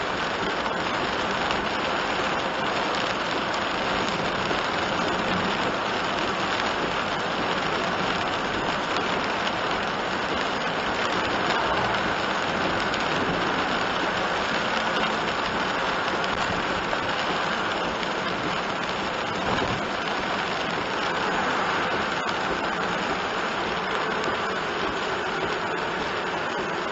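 Steady heavy rain on a moving kei van, heard inside the cabin: rain on the windshield and roof mixed with tyres running on the wet road.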